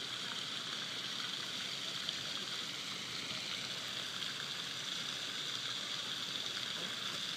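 Pond fountain jet spraying and splashing steadily into the water, an even hiss of falling water.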